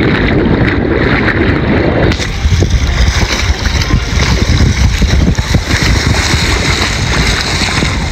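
Wind buffeting the microphone over the wash of waves in shallow sea water. About two seconds in, the sound turns brighter and hissier.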